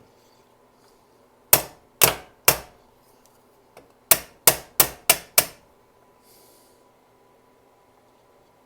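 Hammer tapping a bent metal part on a carburetor to flatten it: three sharp strikes about half a second apart, then a pause and five quicker strikes.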